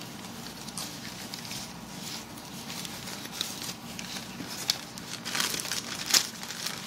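Shredded newspaper packing rustling and crinkling as a hand rummages through it in a cardboard box. It gets louder about five seconds in as a crumpled sheet of newspaper is pulled out.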